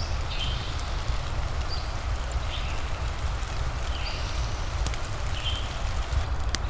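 Looped rain-and-fireplace ambience: steady rain hiss over a constant low rumble, with a few sharp fire crackles near the end. Short high chirps come about once a second throughout.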